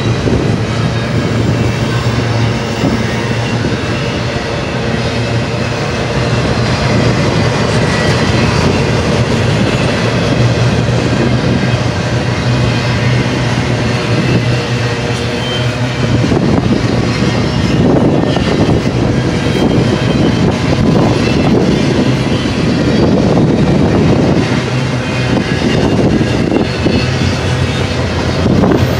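Loaded double-stack container well cars of a long freight train rolling past: steady wheel-on-rail noise and rattling, turning rougher and more clattery about halfway through.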